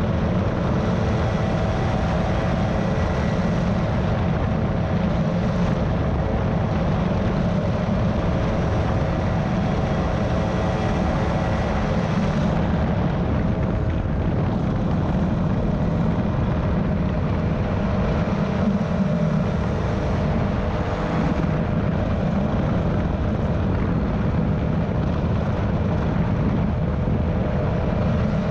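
Airwolf powered parachute's engine and propeller running steadily in flight.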